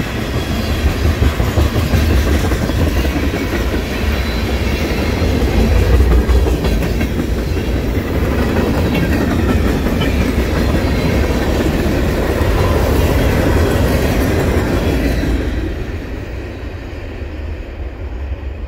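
Freight train tank cars rolling past: a steady heavy rumble with the clatter of steel wheels on the rails. It falls away sharply about three-quarters of the way in as the last car goes by, leaving a quieter fading rumble.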